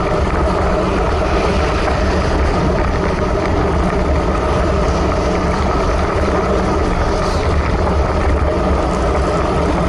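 Steady wind rush buffeting a bicycle handlebar camera's microphone at about 34 km/h, a loud low rumble mixed with the hiss of road-bike tyres on wet asphalt.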